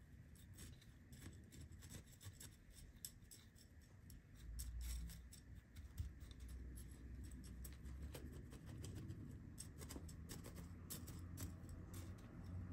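Metal chopstick poking and scraping through gritty bonsai soil, working it in among the roots: faint scratching with many small clicks of grit. A low rumble swells briefly around four to five seconds in.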